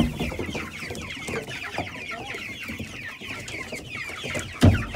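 A flock of young chickens, meat-bird and laying chicks, peeping without a break in many overlapping short, falling chirps. A single loud thump sounds near the end.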